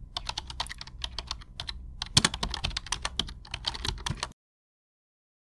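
Rapid, irregular clicking of keys being typed on a keyboard, running for about four seconds and then cutting off abruptly.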